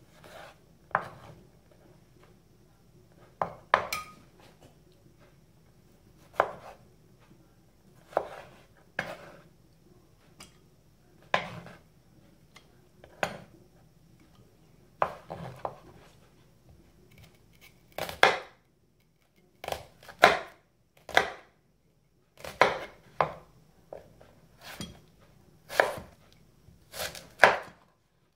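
Chef's knife cutting a tomato and then an onion on a wooden chopping board: single, irregular knocks of the blade on the board, one every second or two, coming closer together in the second half.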